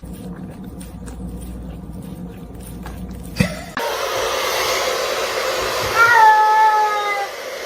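A cat meows once, a long call falling slightly in pitch, over a steady hiss that begins after a cut about four seconds in. Before the cut there is only a low hum with faint clicks.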